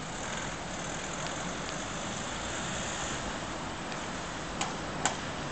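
Steady open-air hiss with no wheel rumble or engine note, and two light clicks near the end, as a Hyundai Rotem urban maglev car glides along its elevated guideway, making very little sound of its own.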